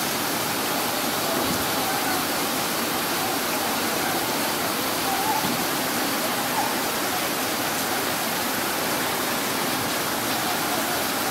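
Steady rush of fast-flowing floodwater from a river in spate, an even, unbroken noise throughout.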